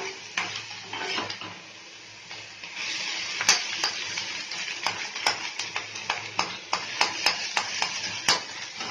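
Metal spoon scraping and knocking against a kadai while stirring chopped onions frying in oil, with a sizzle underneath. The knocks come thicker and sharper from about three seconds in.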